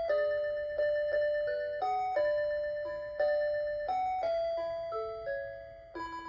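Electronic melody alarm of a 1996 Hitachi DW-237 alarm clock, a rebadged Citizen Melody Box Half, playing a children's song. It sounds in chime-like notes, several at once, each struck and then fading, about two notes a second.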